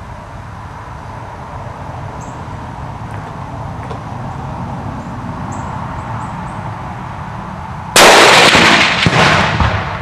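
A .270 Remington 700 bolt-action rifle fires a single loud shot about eight seconds in, after a stretch of low steady background rumble. About a second later a second boom arrives from downrange: the Tannerite exploding target going off on the hit at 300 yards, its report fading out over the next second or so.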